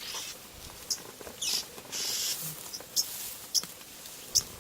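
Oxpeckers calling: several short, sharp high chirps and two brief hissing churrs, about a second and a half and two seconds in.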